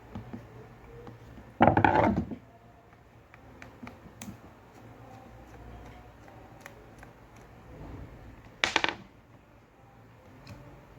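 Handling noise from the parts of an electric fan being taken apart: two short rasping, rattling bursts, one about a second and a half in and a briefer one near the end, with scattered light clicks between.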